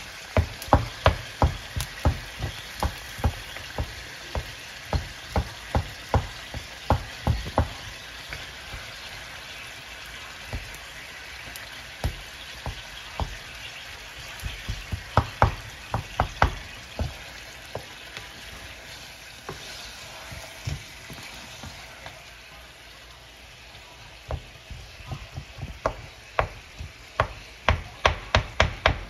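Chicken and tomatoes sizzling in a nonstick pan while a wooden spatula presses and knocks against the pan, squashing the tomatoes. The knocks come in runs of about two a second, with a stretch of only sizzling midway.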